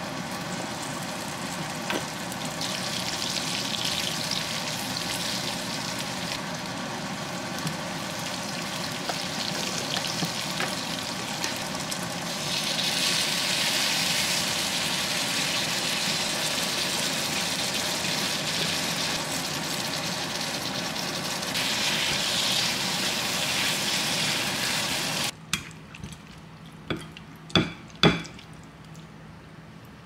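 Floured eggplant pieces sizzling as they fry in oil in a pan, with stirring from a spoon. The sizzle stops suddenly about 25 seconds in, followed by a few sharp clicks.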